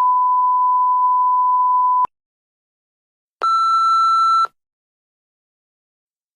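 Censor bleep: a steady pure 1 kHz tone held for about two seconds, then after a pause a second, buzzier electronic beep about a second long at a slightly higher pitch.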